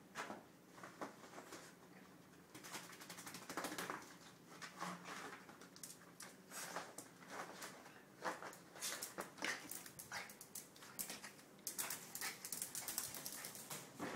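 Wet toy poodle rolling and rubbing itself hard against a cloth bath mat on a tiled floor, drying itself after a bath: irregular scuffing and rustling, busier in the second half.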